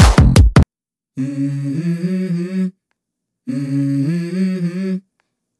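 Electronic dance-workout music with a heavy beat stops abruptly about half a second in. Then a new song opens with a short hummed vocal melody, heard twice with silent gaps between.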